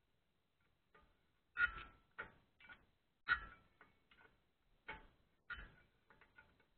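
A series of irregular knocks and clicks, about a dozen, several with a brief ring.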